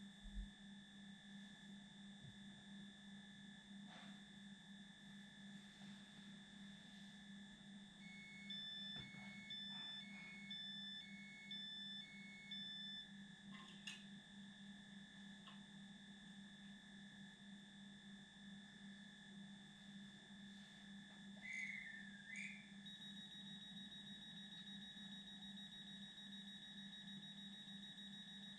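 Near silence, with faint steady electronic humming tones. About a third of the way in comes a run of short beeps alternating between two pitches, about two a second, and about three-quarters through there is a brief gliding chirp.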